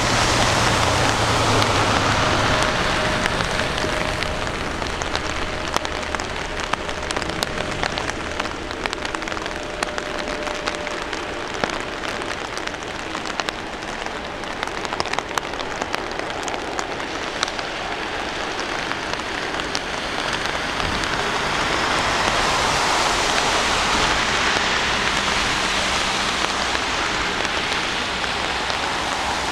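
Boeing 747 freighter's four jet engines at takeoff power, heard through heavy rain. A low rumble with a fading whine is loudest in the first few seconds as it rolls past. The roar dips in the middle and swells again near the end as it climbs away, while raindrops tick sharply close by.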